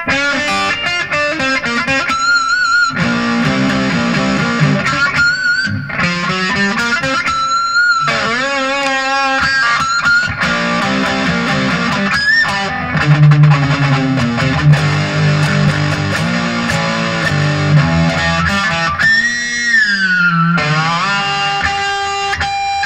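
PRS Custom 24 electric guitar on its bridge humbucker, played through a Pro Co RAT distortion pedal: distorted single-note lead phrases with sustained, vibrato-laden notes and string bends. A wide bend slides the pitch down near the end.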